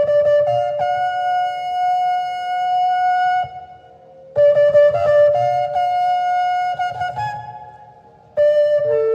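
Shofar blown in long blasts. Each opens on a lower note with a few quick breaks, then steps up to a higher held note. Two full blasts are heard, about four seconds apart, and a third starts near the end.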